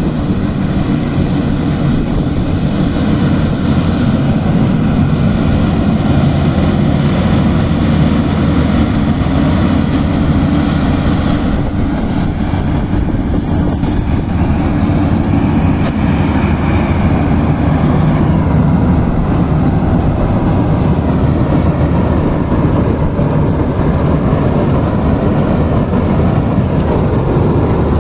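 Marksan combine harvester running steadily while cutting wheat: loud, continuous engine and machinery noise.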